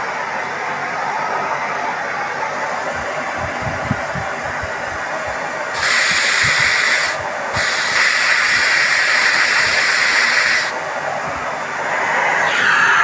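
Miele Complete C3 canister vacuum cleaner running with a steady airflow hiss. About six seconds in the hiss turns louder and brighter, dips briefly, falls back near eleven seconds and rises again near the end, with a few low knocks in between.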